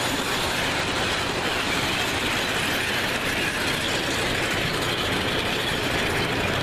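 O scale model trains running on the layout's track: a steady whirring and rattling clatter of motors and wheels.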